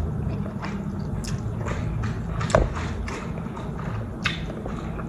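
Close-up eating sounds of ramen noodles being chewed: wet mouth clicks and smacks, with a louder knock about two and a half seconds in, over a steady low hum.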